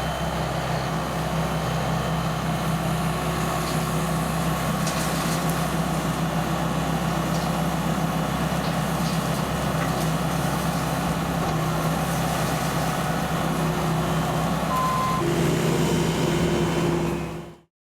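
A vehicle engine running steadily with a low hum, with a steady higher tone joining near the end.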